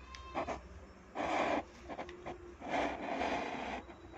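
Fabric tripod bag rustling and rubbing as a tripod is pulled out of it, in two spells of scraping with a few light clicks between.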